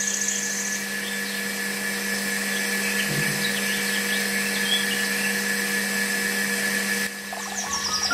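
Small electric motor of a miniature model water pump running with a steady, even hum and whine while it pumps water.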